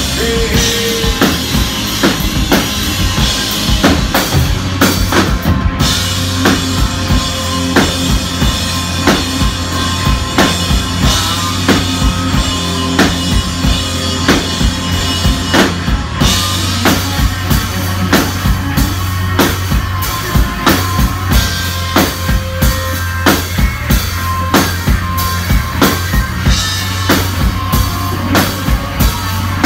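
Live rock band playing: a drum kit keeps a steady beat of bass drum and snare hits under electric guitars and bass guitar.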